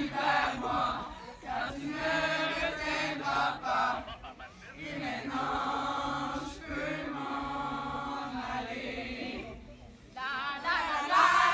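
A group of girls singing together in unison, a slow chant-like song with long held notes and a brief pause near the end.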